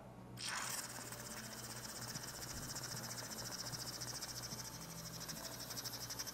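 Whipped cream dispenser spraying cream: a steady, high hiss with a fine, rapid sputter, starting about half a second in.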